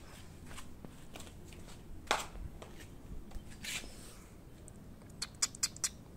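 Flip-flop footsteps scuffing and slapping on concrete pavers, irregular, the loudest about two seconds in, then a quick run of about five sharp clicks near the end.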